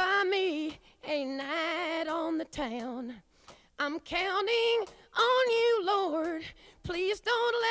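A high, woman's singing voice holding long, wavering notes in short phrases with brief gaps between them.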